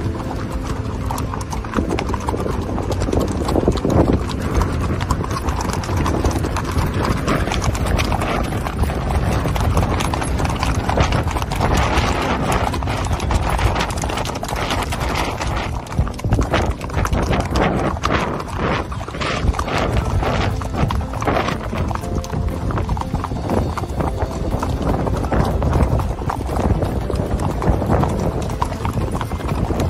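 Icelandic horses' hooves beating quickly and continuously on a dirt and gravel trail, with music underneath.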